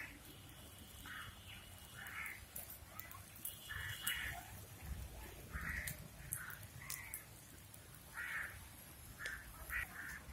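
Crows cawing, about a dozen short, harsh calls at irregular intervals, with a few faint sharp ticks between them.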